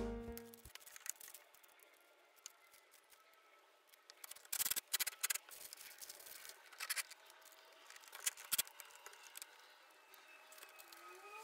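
Scattered sharp clicks and knocks of red parallel bar clamps and maple boards being handled and set in place for a glue-up, in a cluster about four and a half seconds in and again around eight seconds. The tail of background music fades out in the first moment.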